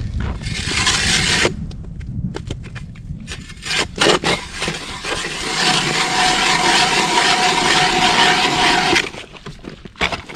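Hand-cranked ice auger boring into pond ice, its steel blades scraping and grinding through slush into solid ice. A short burst of grinding, a rougher stretch with a few knocks, then a long steady run of grinding with a faint whine that stops about nine seconds in.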